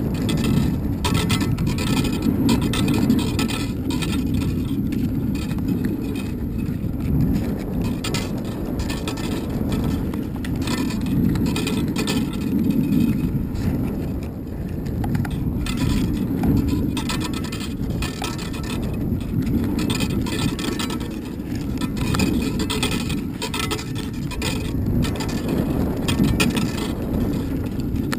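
Wind buffeting a GoPro camera in its housing on a descending high-altitude balloon payload: a steady low rumble with frequent light rattles and clicks from the swinging payload rig.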